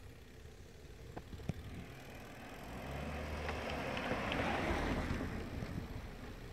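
Rushing wind and road noise from a moving bicycle, picked up by a camera mounted on the bike. The noise swells to a peak a few seconds in and then eases off, and a couple of sharp clicks from the bike rattling come about a second in.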